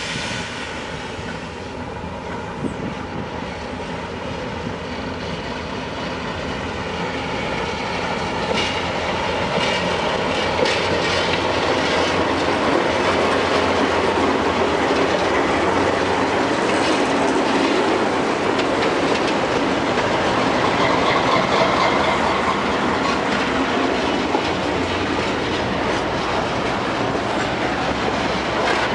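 Freight train rolling past, its wheels clacking over the rail joints with some wheel squeal. It grows louder over the first ten seconds or so, then holds steady.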